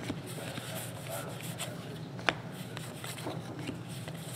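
Trading cards being handled and flipped through, with light ticks and rustles and one sharp tap about two seconds in, over a steady low hum.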